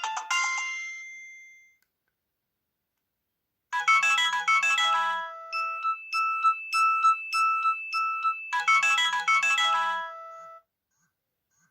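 Nokia 6030 mobile phone ringtones played through its speaker. One tune fades out in the first two seconds. After about two seconds of silence another ringtone melody plays for about seven seconds and then stops.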